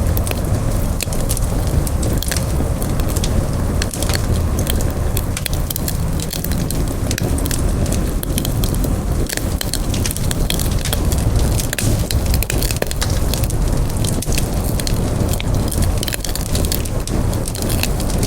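Campfire burning with a steady low rumble and frequent small, irregular crackles and pops.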